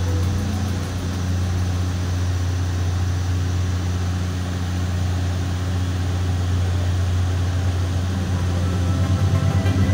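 Airliner cabin noise in flight: a steady drone with a constant low hum.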